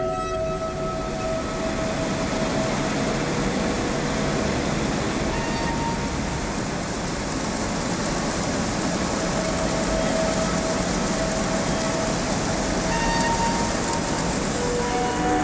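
Steady mechanical noise of a row of thread-winding machines running. A few long held musical notes sound faintly over it.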